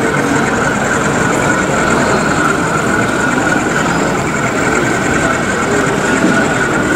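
Steady, even din of an exhibition hall while a model diesel locomotive runs past on the layout. No single knock or event stands out.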